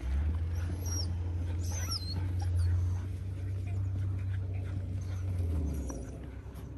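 Border collies whining and yipping in short high squeals while playing, over a low steady rumble that stops near the end.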